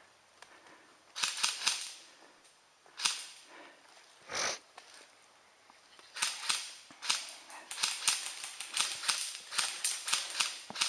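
Airsoft guns firing: a quick burst of snapping shots about a second in, a single shot near three seconds, then a sustained exchange of rapid shots, several a second, from about six seconds on.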